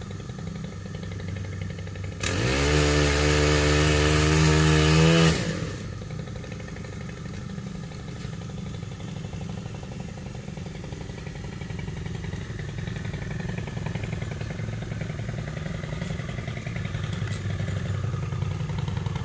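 Small gasoline engine of a tree-trimming tool idling, revved up hard for about three seconds a couple of seconds in, then dropping back to a steady idle. It is running well, just after being started for the first time in about a year.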